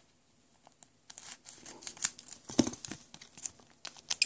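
Foil wrapper of a Pokémon card booster pack crackling and crinkling as it is cut open with scissors and pulled apart, in a run of sharp crackles that starts about a second in.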